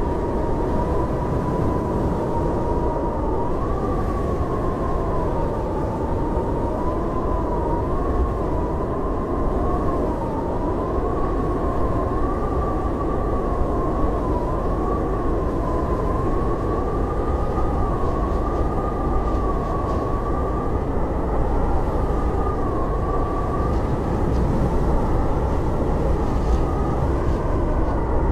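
Blizzard wind howling: a steady low rumble of gusting noise with a thin, wavering howl that slowly rises and falls in pitch.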